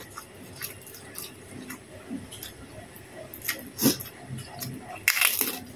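Close-up mouth sounds of a person eating chicken and rice: soft wet chewing with small lip-smacking clicks, and a louder breathy burst about five seconds in.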